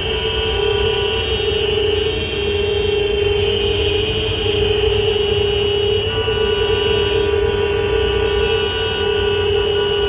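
Several vehicle horns held down together in a continuous, overlapping sound, over a low rumble; another horn joins about six seconds in.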